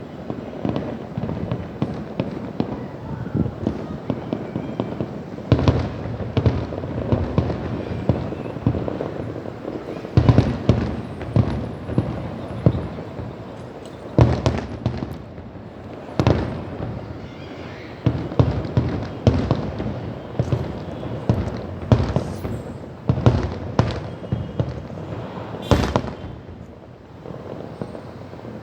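Fireworks going off in a continuous barrage: frequent sharp bangs, a dozen or so louder ones standing out, over steady crackling and rumbling.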